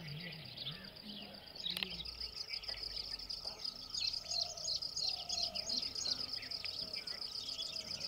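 Birds chirping and calling in a busy chorus of rapid high notes over a steady high-pitched trill, with a few lower, longer calls about halfway through.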